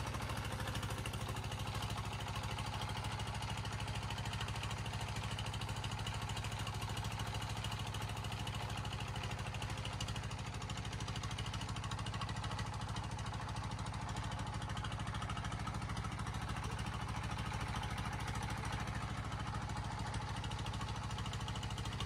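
Engine of a small wooden river ferry boat running steadily under way, heard from on board.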